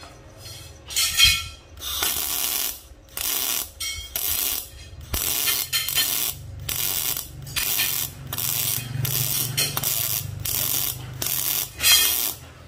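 Protech 250 MIG welder's gas-shielded arc crackling on steel in about a dozen short bursts, roughly one a second, as the weld is laid in stitches.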